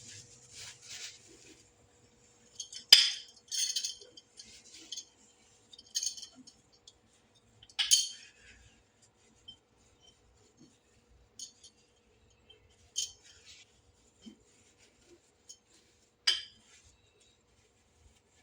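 Sporadic clinks and taps of kitchen utensils against glassware and dishes, the loudest strikes about three seconds and eight seconds in, over a faint steady hum.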